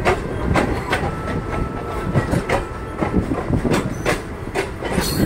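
Indian Railways passenger train running along the track, heard from aboard the coach: a steady rumble of wheels on rail with irregular clacks from the rail joints, about two a second.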